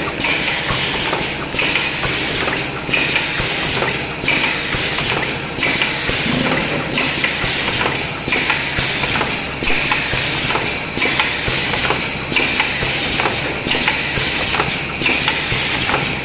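Automatic ECG electrode production line running: dense mechanical clatter and a steady high hiss, with a regular cycling stroke about every second and a half.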